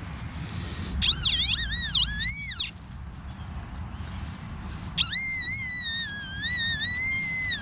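Metal detector's electronic target tone: a high whine that warbles up and down for about two seconds, stops, then comes back about five seconds in as a steadier, slowly wavering tone. The strong high-tone signal comes from a flat iron washer in the hole.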